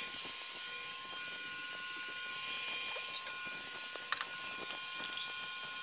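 Steady hiss with a faint high whine and a few light ticks, from a welding shop while the TIG setup stands idle with no arc struck.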